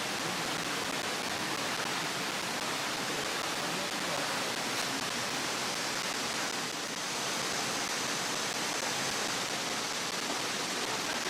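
Rushing water of a valley stream: a steady, even rush.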